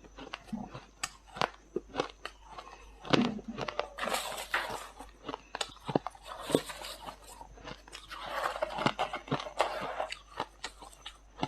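Freezer frost being bitten and chewed close to the microphone: many sharp crunches, with two longer gritty stretches of dense crunching about four seconds in and again around eight to ten seconds in.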